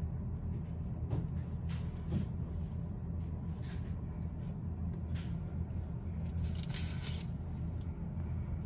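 Steady low background hum, with a few faint clicks and a short brighter rustle about seven seconds in, typical of small handling noises around the wire leads and clips.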